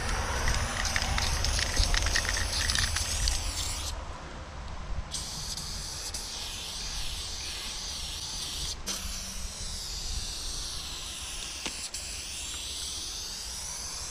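Aerosol spray paint can hissing as lines are sprayed onto a wall. The spray breaks off about four seconds in, then resumes as a long continuous hiss. A low rumble sits underneath during the first few seconds.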